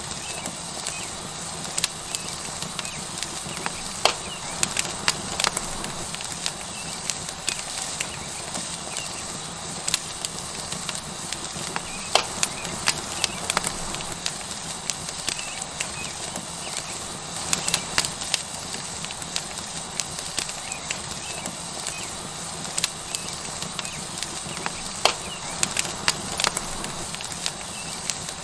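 Tomahawk steak sizzling on a hot stone over a wood fire, with the fire crackling: a steady hiss with sharp, irregular pops scattered through, now and then several close together.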